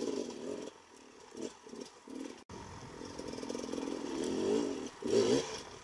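2018 Beta 300RR two-stroke dirt bike engine revving in short bursts of throttle while it picks through rocks. After a brief break about halfway it is held at higher revs for a couple of seconds, with a sharp blip near the end.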